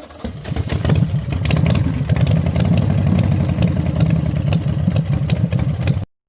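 An engine running steadily with a low, even hum and a lot of rattling clatter, cut off suddenly about six seconds in.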